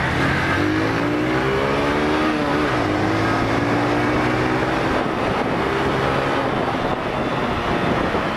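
Motorcycle engine accelerating, its pitch climbing for about two seconds, then dropping back and running steadily under a continuous rush of wind and road noise.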